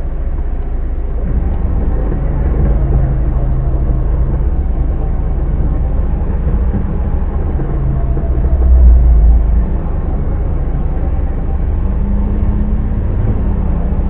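Off-road vehicle engine running at low revs, heard from inside a vehicle cabin, a steady low rumble with a shifting hum. About nine seconds in it swells louder for about a second.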